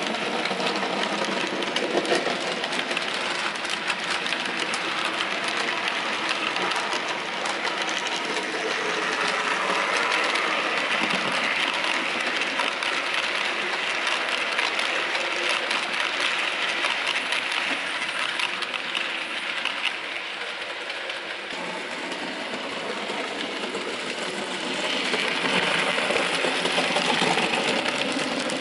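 OO gauge model train running: a steady motor whirr with the rattle and fine clicking of coach wheels over the track. It grows louder twice as the train passes close.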